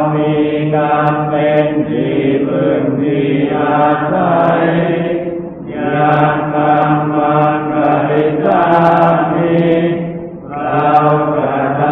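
Thai Buddhist evening chanting, recited on a near-monotone in long phrases, with short pauses for breath about five and ten seconds in.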